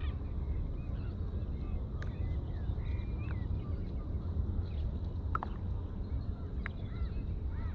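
Birds calling by the shore: a few short sharp calls about two, five and a half and seven seconds in, and some wavering higher calls around three seconds in and near the end. Beneath them runs a steady low rumble.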